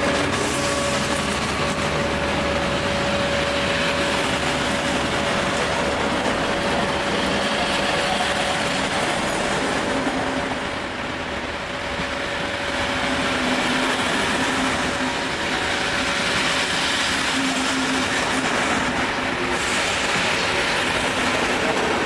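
Ex-TEE Rheingold passenger coaches rolling past on the rails in a steady, continuous rumble of wheels and running gear. A steady hum sits under it and fades out about halfway through.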